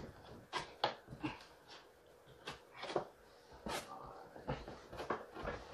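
Cardboard helmet box being opened by hand: a scatter of short taps, scrapes and rustles as the top flaps are pulled open and the lid lifted.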